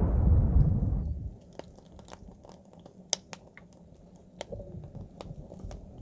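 A low rumble fades out in the first second or so. Then a wood fire burning inside a split-log rocket stove gives sparse, sharp crackles and pops at uneven intervals.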